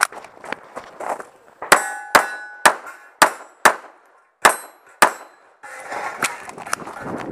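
A string of about eight pistol shots, roughly two a second, some followed by the ring of struck steel targets. From a little past halfway the shots stop and a rustling noise follows as the shooter moves to the next position on gravel.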